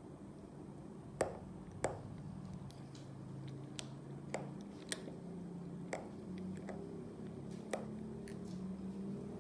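A metal spoon stirring thick soaked muesli in a glass mug, clinking against the glass about half a dozen times at irregular intervals, with the two loudest clinks near the start, and soft squishing of the mixture between them.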